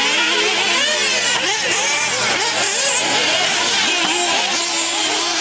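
Several nitro RC buggy engines revving and easing off at once, their high-pitched whines rising and falling and overlapping as the cars race round the track.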